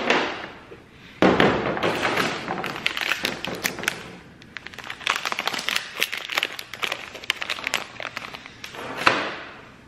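Hand-handling noise of small plastic and metal parts, tail light bulbs and their housing: a sharp click at the start, a louder clatter about a second in, then a run of fine crackling clicks, and another knock near the end.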